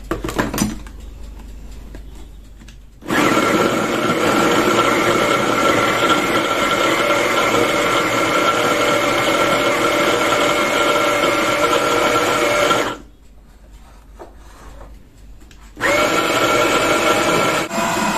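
Electric food chopper (a hand-blender motor unit on a chopper bowl) mincing peeled garlic cloves. The motor runs steadily for about ten seconds, stops for a few seconds, then starts again for the last couple of seconds.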